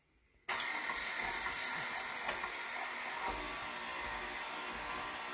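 Electric stand mixer switched on about half a second in, then running steadily, its wire whip beating butter and icing sugar together into buttercream frosting.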